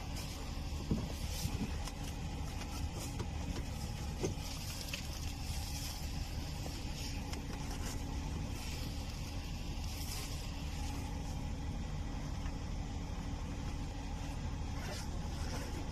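A vehicle engine, likely the inspected bus's, idling with a steady low hum. There are a few light knocks and rustles from plastic-wrapped packages being handled, about a second in and again around four seconds.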